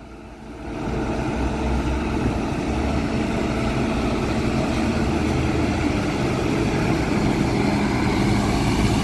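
Mercedes-Benz OF 1722 M bus with a front-mounted diesel engine driving up and passing close, its engine running steadily and growing louder about a second in.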